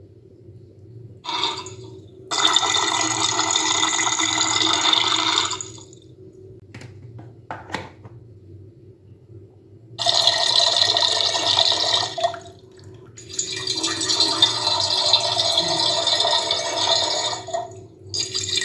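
Water dispenser set pouring water in bursts: four main pours, each two to four seconds long, that start and stop abruptly. There are a few sharp clicks between the pours and a faint steady hum underneath.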